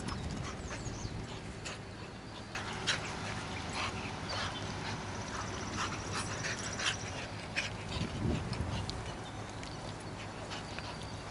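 Two young pit bulls chasing each other at play on grass, with scattered short clicks and taps over a steady low background.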